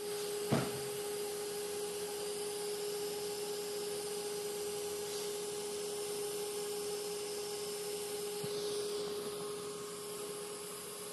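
TIG welding arc burning on a 2-inch SCH10 stainless steel pipe during a main tack weld: a steady hiss with a constant hum. There is a brief click about half a second in.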